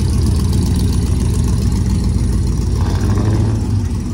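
Engine of a vintage forward-control van pulling away at low speed: a steady low rumble, building briefly about three seconds in.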